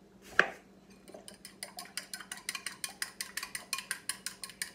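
Fork beating egg in a glass bowl, clinking against the glass in a quick, steady rhythm of about seven strikes a second. A single sharp knock comes about half a second in, before the beating starts.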